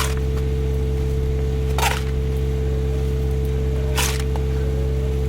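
An engine running steadily at a constant speed, with short scraping swishes about every two seconds.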